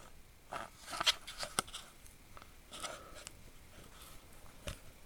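A small metal tool being handled, giving a scatter of short light clicks and knocks with faint rustling between them. The sharpest clicks come about one to one and a half seconds in, with another near the end.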